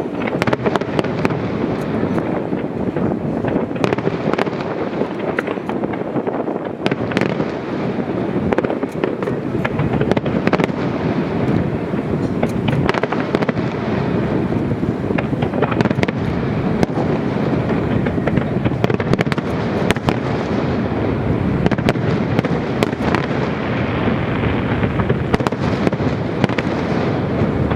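Fireworks display: a dense, continuous run of bangs and crackling bursts, many of them overlapping.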